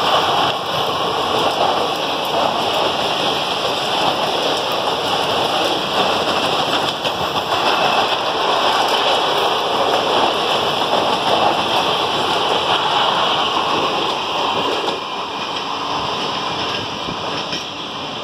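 ICF passenger coaches of an Indian Railways express rolling past at speed: a steady rush of wheels on rail. It eases off over the last few seconds as the tail of the train goes by.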